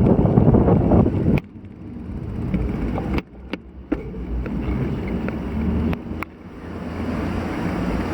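Strong typhoon wind buffeting an action camera's microphone, a rough low rumble that cuts off abruptly about a second and a half in, again near three seconds and again near six seconds, swelling back each time.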